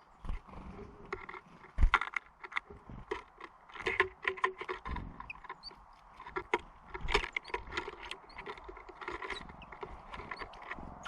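Small songbirds at a seed feeder: a busy, irregular run of sharp taps and clicks as they land and peck at seed, with a few very short high chirps.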